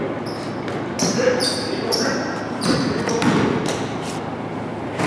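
Basketball bouncing several times on a hardwood gym floor, each bounce echoing in the large hall.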